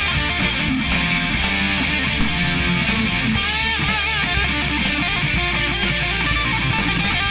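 Heavy rock music led by electric guitar, with a lead line that bends in pitch about three and a half seconds in.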